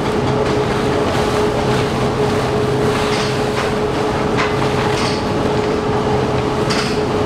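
Tea factory machinery running steadily, a dense mechanical noise with a low hum and a constant mid-pitched whine, while fresh tea leaves are dumped from sacks into the feed hopper, giving a few short rustles.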